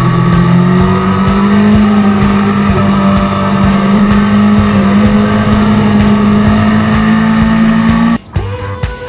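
Sport motorcycle engine at high revs, recorded onboard: its pitch rises a little in the first second, then holds steady. About eight seconds in it cuts off abruptly and music begins.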